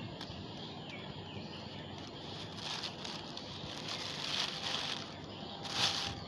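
Rustling and crinkling of plastic garbage and a plastic bag being handled, in a few irregular bursts with a short, louder one near the end.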